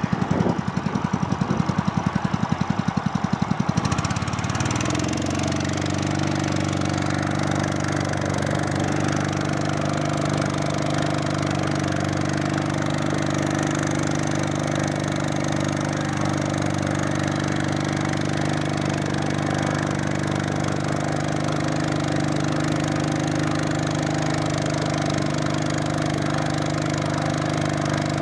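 Honda GX200 single-cylinder four-stroke engine on a belt-driven fishing boat, first running slowly with distinct pulsing beats. About four seconds in it is throttled up and settles into a steady, even run at higher speed.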